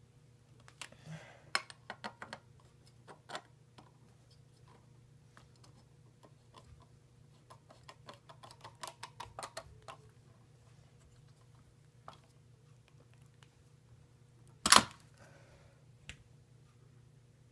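Screwdriver clicking and scraping on screws as a porcelain lampholder is tightened down onto a metal electrical box: scattered clicks at first, a run of small quick ticks in the middle, then one sharp loud knock near the end.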